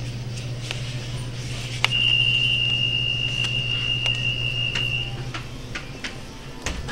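An electronic beep, one steady high tone lasting about three seconds, starts with a click about two seconds in. It sounds over a steady low hum that fades near the end, with scattered light clicks.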